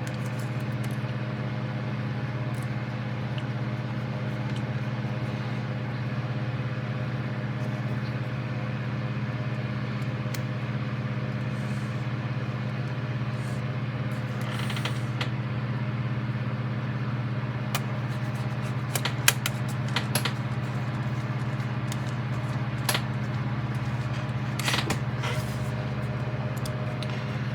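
Steady low mechanical hum, with a few small clicks and taps from plastic model parts and a small screw being worked by hand in the later part.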